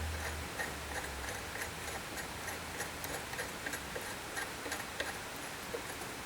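Light, irregular metal clicks from hand tools working a thread insert into a mount, a few clicks a second.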